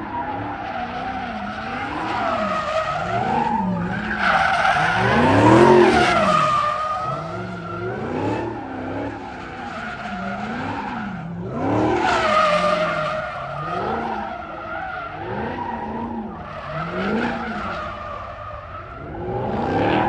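A car spinning in circles with its tires squealing continuously. The engine revs rise and fall over and over, about once every second and a half. The squeal swells louder twice, a little before the middle and again just past it.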